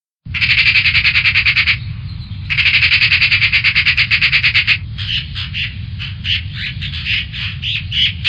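Magpie chattering: two fast runs of harsh rattling notes, about ten a second, then looser, irregular notes in the second half, over a low steady hum.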